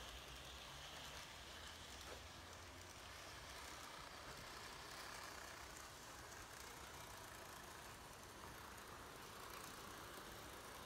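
TOMIX N gauge model trains (a 185 series and a 251 series) running on track: a faint, steady whir of their small motors and the rolling of their wheels on the rails.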